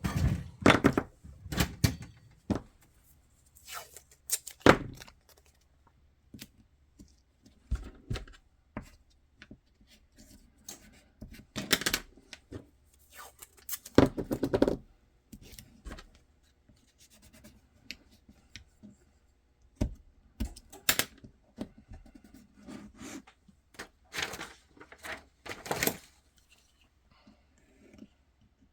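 Scattered clicks, taps and brief rustles of hand work at a bench as blocking pieces are handled and set in place on a pistol mold for a Kydex holster, with a few louder knocks between quiet gaps.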